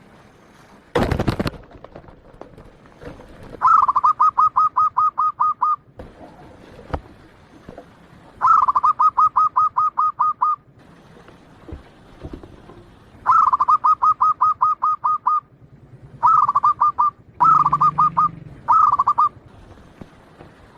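Zebra dove (perkutut) singing: about six phrases of quick, evenly spaced cooing notes, each about a second or two long and coming every few seconds, the last ones shorter and closer together. A short loud burst of noise comes about a second in.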